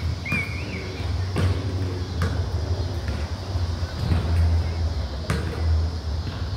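Basketball bouncing a few separate times on a concrete court, sharp single knocks over a steady low rumble.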